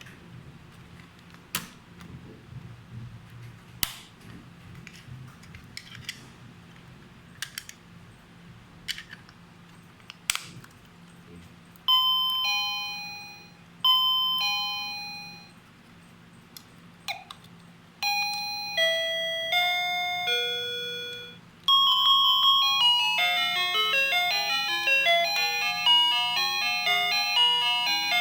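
XINHUI 610B wireless doorbell chime. After several sharp clicks it plays a two-note electronic ding-dong twice, then a short falling run of four notes, then a longer, busier electronic melody that is still playing at the end.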